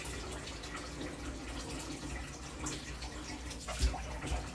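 Kitchen tap running into a stainless steel sink while a fish is rinsed and scaled by hand under it. A couple of short knocks near the end.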